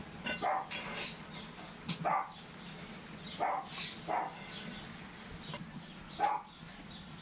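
A dog barking in short, separate yaps, about seven spread irregularly, the loudest near the end.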